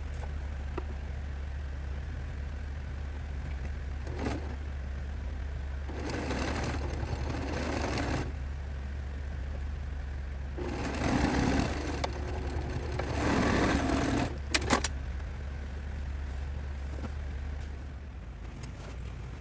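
Sewing machine stitching quilt pieces in two short runs, one about six seconds in lasting two seconds and a longer one from about ten to fourteen seconds, over a steady low hum, with a few sharp clicks right after the second run.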